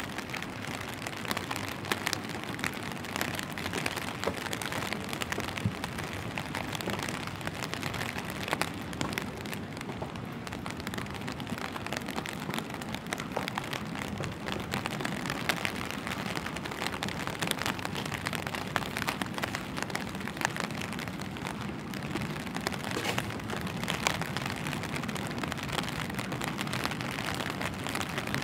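Steady rain falling on wet ground, an even hiss sprinkled with many small sharp drip taps.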